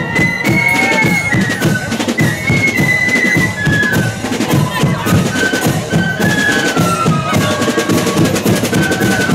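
Marching flute band playing: a flute melody over snare drums and a bass drum beating a steady march rhythm.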